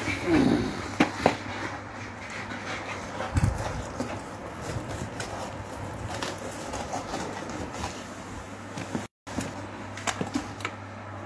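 Cardboard product boxes being handled and set down, with a few light knocks and clicks over a steady low hum.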